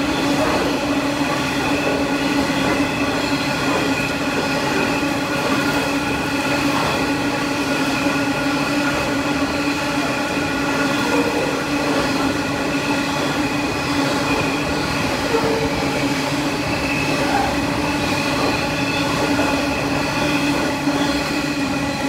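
Freight train of hopper wagons rolling steadily past on a curve: a continuous rumble of wheels on rail with a steady whine of wheel squeal over it.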